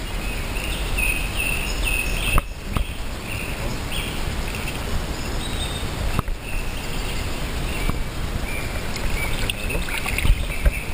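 Steady rush of a shallow river running over stones, with a low rumble on the microphone, and short high chirps repeating every second or so.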